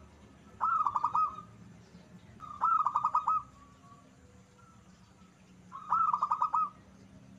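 Zebra dove cooing: three phrases of quick, rolling coo notes, each about a second long and spaced about two and a half seconds apart.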